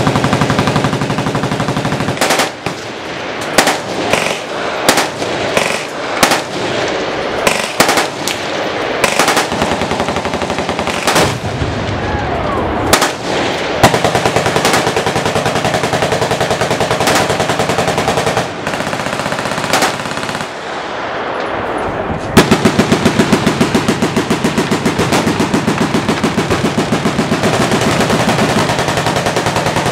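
Several machine guns firing at once: long overlapping bursts of rapid automatic fire, with louder single reports standing out. About two-thirds of the way through, a nearer gun opens a loud, even, sustained burst.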